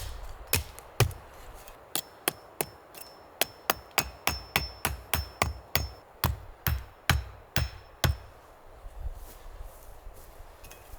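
A stake being hammered in: a few single blows, then a quick, steady run of knocks, about three or four a second, with a faint high metallic ring. The hammering stops about eight seconds in.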